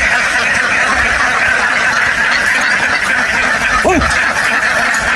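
A large flock of ducks quacking and chattering together in a dense, steady din, with one drawn-out call that bends up and down just before four seconds in.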